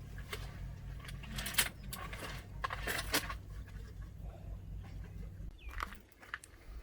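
Several sharp clicks and clinks of small hard objects being handled, over a steady low hum that stops about five and a half seconds in.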